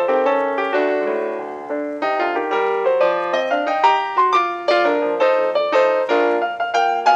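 Background piano music: notes struck several times a second, each fading away.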